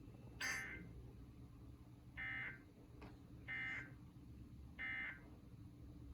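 Emergency Alert System end-of-message data signal: three short bursts of buzzing two-tone digital code, evenly spaced a little over a second apart, marking the end of the alert. A short burst of noise comes about half a second in.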